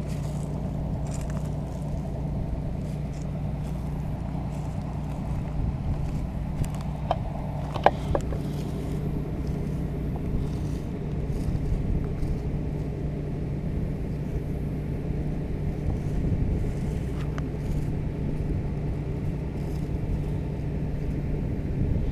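Combine engine running steadily, a low even hum, with a couple of short clicks about eight seconds in.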